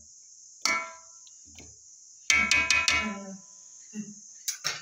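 Metal clinks against a cooking pot: one sharp clink with a short ring about half a second in, then a quick run of four ringing strikes at about two and a half seconds. A steady high insect chirring runs underneath.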